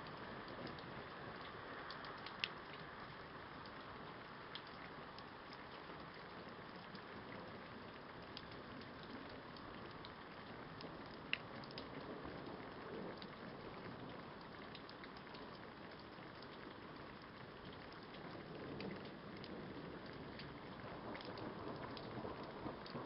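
Steady rain falling during a thunderstorm, a soft even hiss with scattered sharp drop ticks; two louder ticks come about two and a half seconds in and again about eleven seconds in.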